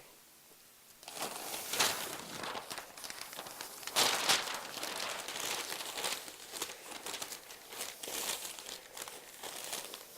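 Sheet of white paper rustling and crinkling as it is folded and wrapped by hand, starting about a second in in irregular bursts, loudest near the middle.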